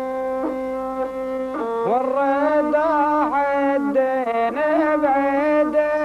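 Bedouin rababa, a one-string bowed spike fiddle, playing a folk melody: evenly held notes at first, then from about two seconds in a rising slide into wavering, bending notes.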